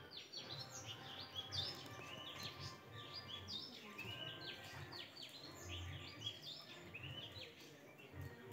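Several small birds chirping, a dense run of short overlapping calls that fall in pitch.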